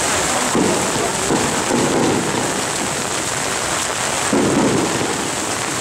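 Heavy rain falling steadily, pattering on umbrellas and plastic raincoats, with a few brief, duller surges.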